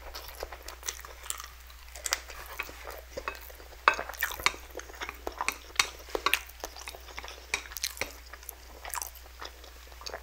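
Close-miked chewing of spicy instant noodles and sausage: a steady run of short, sharp mouth clicks and smacks, the loudest about four seconds in.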